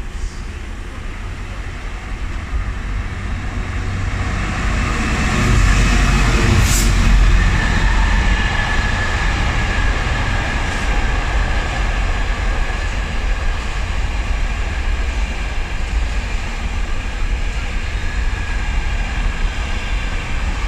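Diesel-hauled container freight train running through close by. The locomotive grows loudest about six seconds in, then the loaded container wagons roll past with steady wheel and rail noise.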